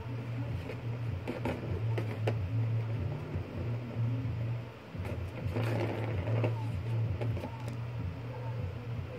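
A cat pawing at a plastic ball-track toy with a cardboard scratch pad: a few sharp clicks and taps about two seconds in, then a rustling scratch about halfway through, over a steady low hum.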